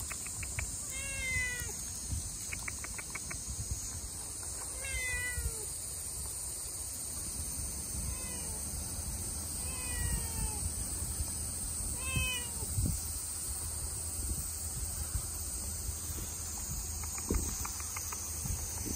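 Stray cat meowing five times a few seconds apart, each meow falling in pitch.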